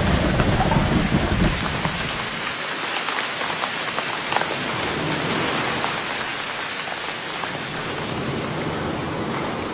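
Steady hiss of heavy rain with scattered drop clicks, opening with a deep rumble that fades out about a second and a half in.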